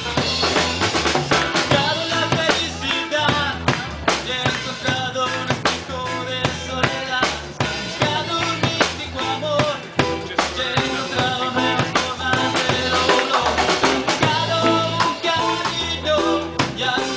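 Live reggae rock band playing, with a drum kit carrying the beat through rimshots, bass drum and snare under pitched instruments.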